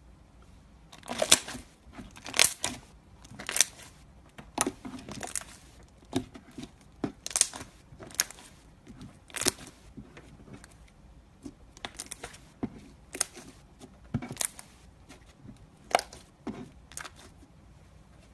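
Slime being squeezed and pressed by hand, making crackling, popping bursts about once a second.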